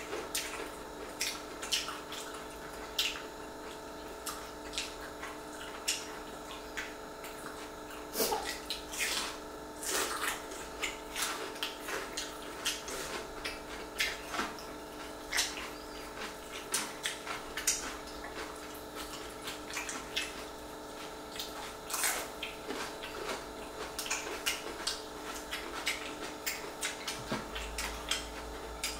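Close-up eating sounds: wet chewing and lip smacks, heard as many short irregular smacks and clicks, over a steady faint hum.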